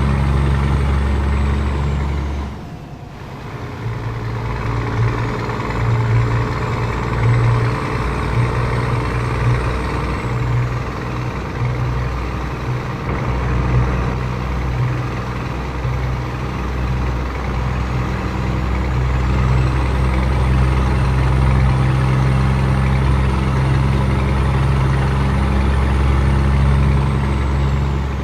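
Scania 500S truck engine running loud through a straight-through (direct) exhaust, dipping briefly about two and a half seconds in, then surging unevenly for several seconds before settling into a steady drone. A faint high whistle rises and falls above it.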